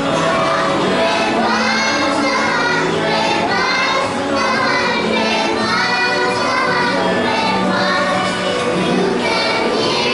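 A group of young children singing a song together, one of them into a handheld microphone.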